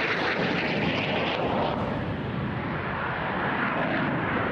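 Jet of an Aermacchi MB-339 trainer making a low solo pass, a continuous loud turbojet roar. A high hiss in the roar fades about a second and a half in, leaving a lower rumble.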